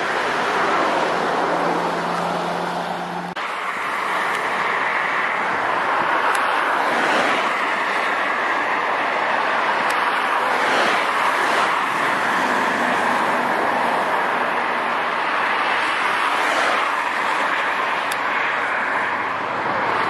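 Steady vehicle rumble with several slow passing swells, broken by an abrupt edit cut about three seconds in.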